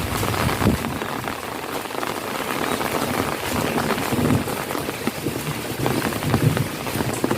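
Heavy rain pouring steadily onto puddles and flooded ground, a dense even hiss, with a few short low rumbles partway through.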